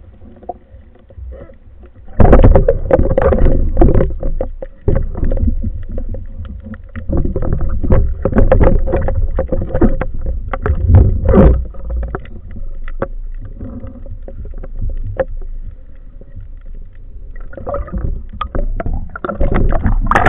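Muffled underwater knocking, clicking and scraping from a speargun and its mounted waterproof camera being handled, over a low water rumble. The knocks start suddenly about two seconds in, thin out in the middle and pick up again near the end.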